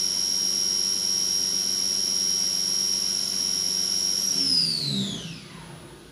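CNC machining center spindle running at high speed with a steady high-pitched whine, then spinning down: about four seconds in the whine slides steadily lower in pitch and fades away as the spindle coasts to a stop.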